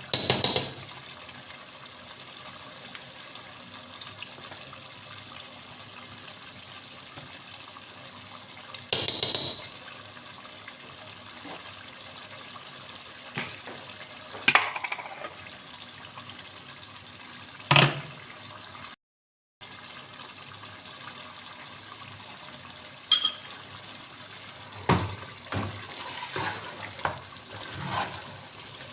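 Kitchen sounds of cooking: a steady hiss with scattered clinks and knocks of utensils and cookware. The sound cuts out completely for a moment about two-thirds of the way through.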